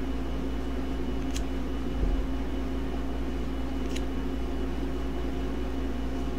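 Steady low background hum, with a few faint clicks and a soft bump as a stack of trading cards is handled and flipped through.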